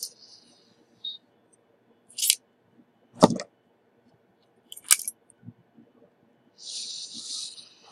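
Small tools being handled on a workbench: a few separate clicks and taps, one louder knock about three seconds in, and a short hiss near the end.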